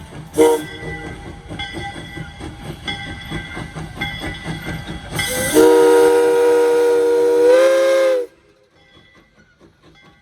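Steam locomotive whistle: a short toot about half a second in, then a long chord-like blast from about five seconds that steps up slightly in pitch near its end and cuts off sharply, over the locomotive's running rumble.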